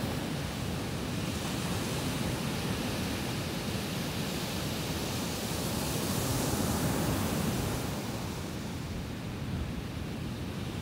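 Ocean surf breaking on a sandy beach: a steady rushing wash of waves that swells about six seconds in as a wave breaks across the shore, then eases off.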